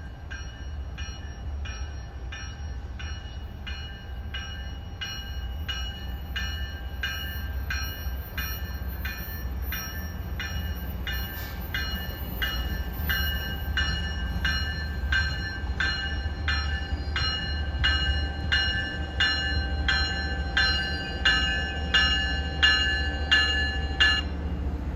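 MBTA bi-level commuter train pulling into the station, its bell ringing steadily a little under two strokes a second over a low rumble that grows louder as it nears. The bell stops shortly before the end.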